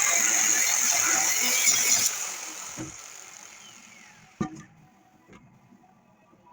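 Angle grinder running on steel, switched off about two seconds in and winding down with a falling whine, followed by a single sharp metal clank.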